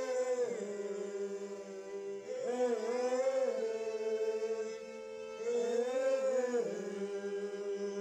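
Concertina holding a sustained chord while a voice sings long wordless vowel phrases over it, three times about three seconds apart.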